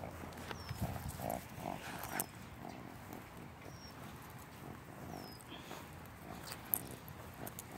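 Birds calling now and then in short high chirps, over footsteps and rustling on grass.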